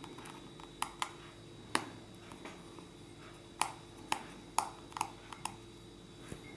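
Small, sharp clicks and taps, about eight of them at irregular intervals, from a tiny screwdriver and fingertips working at the screws and metal plates inside an opened iPhone 8.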